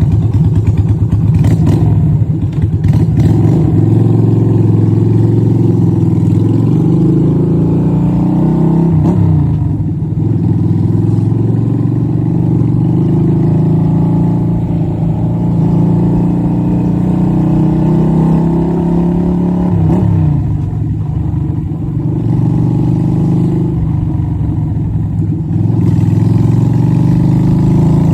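Yamaha Virago XV250's V-twin engine running through a straight-through exhaust while riding, pulling steadily. Twice, about ten and twenty seconds in, the pitch drops sharply and then climbs again.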